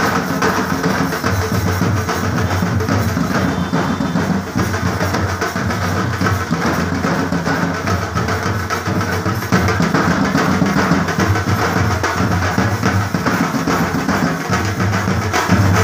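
A troupe of large hand-carried drums, beaten with sticks, playing a loud, continuous driving rhythm with deep booming beats and rolls.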